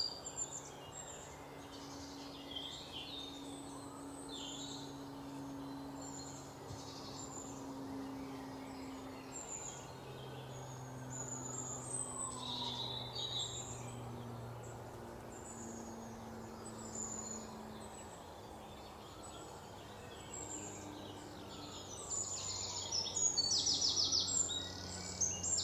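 Small birds chirping at intervals; the chirps come thicker and louder near the end. Beneath them runs a low steady hum.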